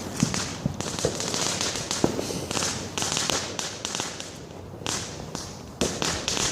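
Consumer fireworks crackling: a dense run of sharp snaps and cracks mixed with bursts of fizzing hiss.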